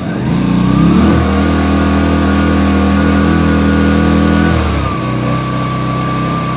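Yamaha EF1000is inverter generator's small single-cylinder four-stroke engine running just after a cold start: it revs up in the first second, holds at high speed, then drops to a lower steady speed about five seconds in.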